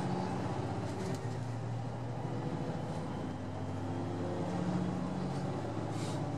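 KiHa 189 diesel railcar's engine working hard as the train accelerates away from a station, heard inside the passenger cabin. The engine note drops about a second in, then climbs steadily again as speed builds, over wheel and rail rolling noise.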